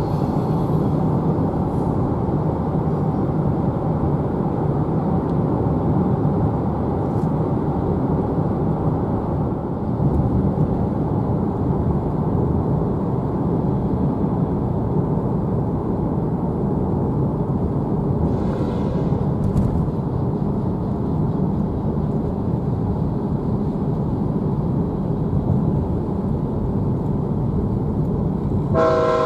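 Steady rumble of road and rail noise heard from inside a car pacing a CSX freight train. Near the end the lead locomotive's horn begins to sound.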